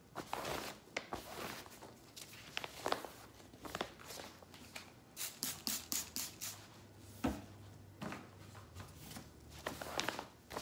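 A duster and gloved hand brushing and wiping over a non-woven reusable tote bag, irregular swishing strokes with rustling of the bag fabric. Around the middle comes a quick run of about eight short swishes, and a soft thump follows a little later.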